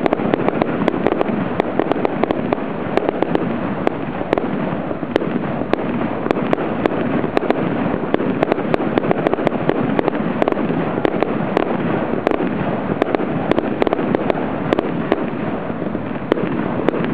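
Fireworks display: a dense, unbroken crackle of many sharp pops and bangs from bursting shells and crackling effects.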